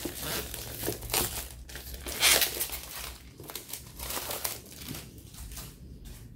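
Clear plastic shrink-wrap crinkling in irregular crackles as it is peeled off a boxed card deck, loudest a little over two seconds in.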